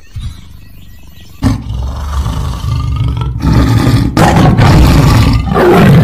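Tiger roaring: a low growl at first, then loud, deep roars in several bouts from about a second and a half in.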